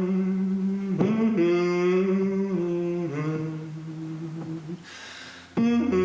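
Wordless humming in long held notes, a slow melody stepping from note to note, with a short breath near the end.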